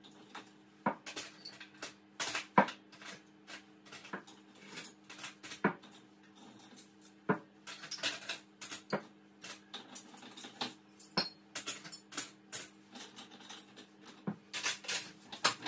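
Crockery and cutlery being put away by hand: irregular clinks and knocks of cups, plates and metal utensils, with a low steady hum underneath.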